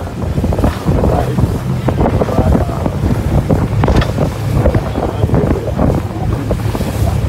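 Wind buffeting the microphone aboard a moving boat, with water rushing past and a steady low drone underneath.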